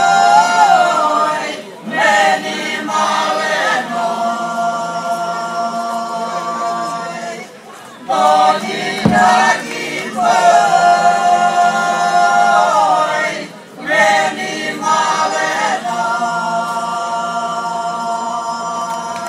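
Mixed choir of men's and women's voices singing ojkavica, the Dalmatian hinterland style of ojkanje, unaccompanied: long held notes in close harmony, in phrases of a few seconds with short breaths between, the pitch wavering and gliding at the ends of phrases.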